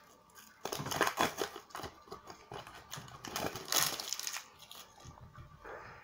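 Foil sticker packet being torn open and crinkled by hand, with the stickers slid out. There are two bursts of crackling rustle, about a second in and again at about three and a half seconds.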